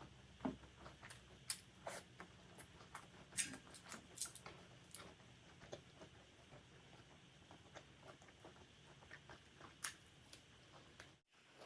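Faint close-miked eating sounds: wet chewing and lip smacks with scattered sharp clicks, busiest in the first few seconds and sparser after. The sound drops out briefly near the end.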